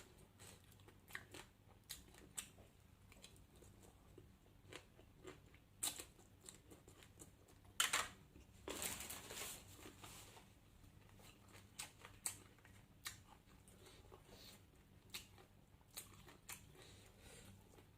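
A person eating: faint chewing with scattered small mouth clicks, and a louder crunching bite about eight seconds in that runs on for a second or two.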